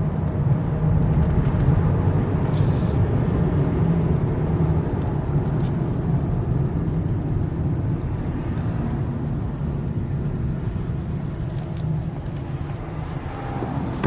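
Steady car driving noise heard from inside the cabin: a low engine and road rumble that holds even throughout.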